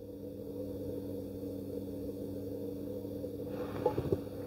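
Electric potter's wheel spinning, its motor giving a steady low hum. A couple of small clicks come near the end.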